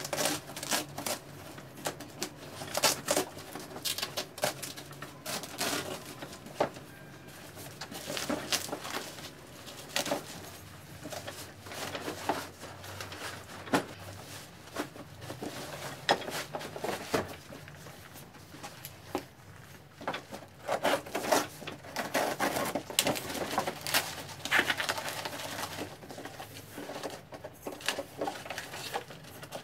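Rustling and crackling of a woven plastic sack being torn open and pulled off a large cardboard box, with irregular knocks and scrapes as the cardboard box is handled.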